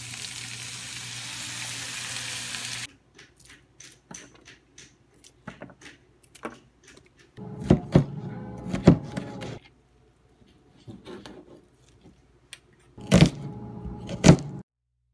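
Frying pan sizzling as liquid is poured in, an even hiss that cuts off after about three seconds. Then a cleaver chops vegetables on a plastic cutting board in two short spells, with a few sharp knocks among lighter clicks.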